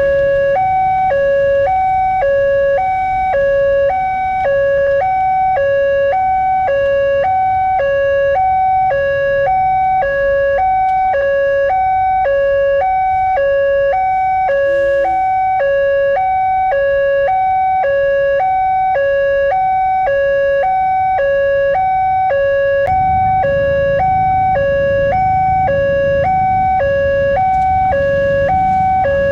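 Railway level-crossing warning siren of the recorded 'Mp3' type, sounding a loud two-tone hi-lo alarm whose two pitches alternate about twice a second, starting abruptly. A low rumble of traffic grows louder about 23 seconds in.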